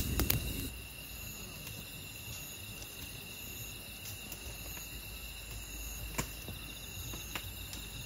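Crickets and other night insects chirping steadily in several high, even tones, with a couple of faint clicks.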